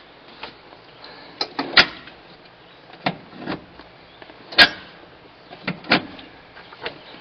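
A dashboard control lever and its cable being worked by hand: scattered sharp metallic clicks and clunks, about eight in all, the loudest a single knock a little past halfway.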